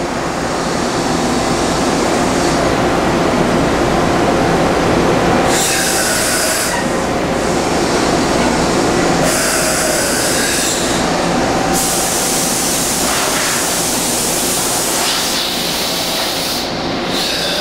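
Okuma MC-50H horizontal machining center running loudly under power: a steady mechanical drone with a high hiss that starts and stops several times, as a manual pallet change is set going.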